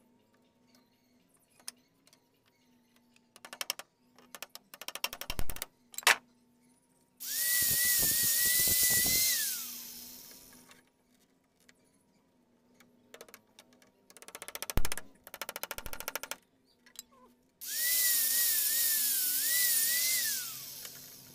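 Power drill running into wood in two runs of about three seconds each, its motor whine wavering and then winding down at the end of each run. Shorter spells of rapid clicking come before each run.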